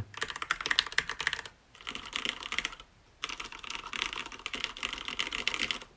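Typing on a Hansung GK993B SKY tenkeyless mechanical keyboard with Cherry MX Red linear switches: rapid keystroke clicks in three runs, with brief pauses about one and a half and three seconds in.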